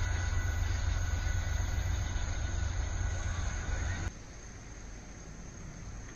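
Low rumble of a freight train receding down the line. It cuts off abruptly about four seconds in and leaves a faint, steady background hiss.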